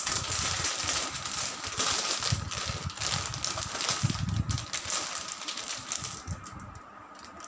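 Clear plastic poly bag crinkling and rustling as hands open it and pull a folded denim kurti out, with soft handling thumps; the crinkling eases off near the end.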